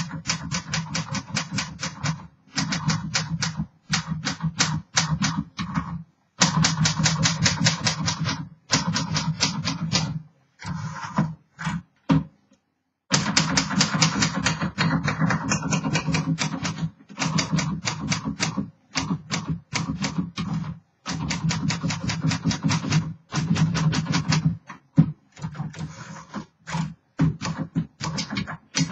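Typing on a 1938 Smith-Corona Standard flat top manual typewriter: rapid runs of key strikes, the typebars hitting the platen, with short pauses between runs.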